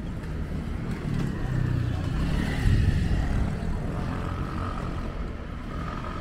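Motor vehicle engine rumble going by, swelling to its loudest a little under halfway through.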